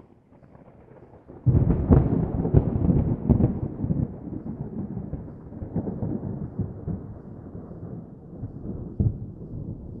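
A low, crackling rumble that starts suddenly about a second and a half in, is loudest for the next couple of seconds, then slowly fades.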